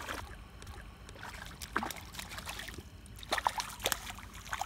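A small hooked bass splashing at the water's surface as it is reeled in to the boat: several irregular splashes, the loudest cluster about three to four seconds in.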